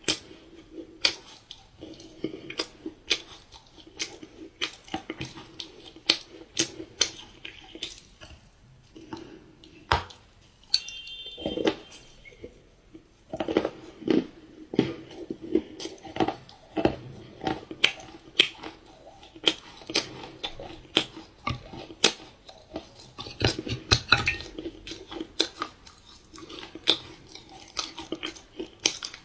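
Close-miked chewing of dark chocolate pie, with many sharp wet clicks and crackles at an irregular pace. A brief ringing clink sounds about eleven seconds in.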